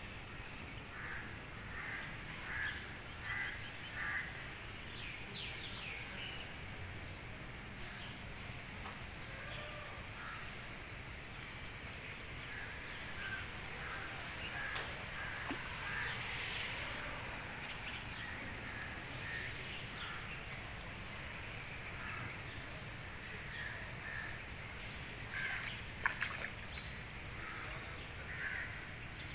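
Outdoor ambience with birds calling in short repeated series, a few times, over a steady low background rumble, with one sharp click near the end.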